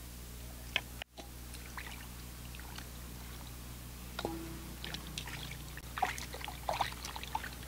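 Water splashing and dripping in a metal pot as raw chicken pieces are washed and handled by hand, in short scattered splashes that come more often in the second half. A faint steady low hum runs underneath.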